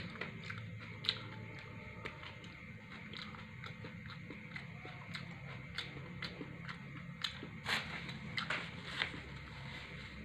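A person chewing a mouthful of pizza close to the microphone: irregular small mouth clicks and smacks, with a few louder ones near the end.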